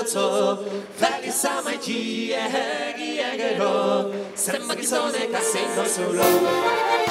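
A group of women singing together unaccompanied, several voices in harmony. About six seconds in, the band comes in underneath them.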